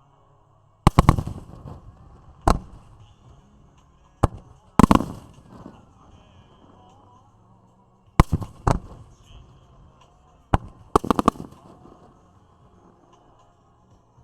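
Aerial fireworks shells bursting overhead: sharp bangs, some single and some in quick runs of three or four, each trailing off in a rolling echo.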